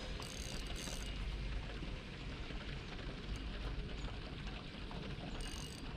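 Steady outdoor noise with a heavy low rumble, broken by a short high-pitched burst about a quarter-second in and another near the end.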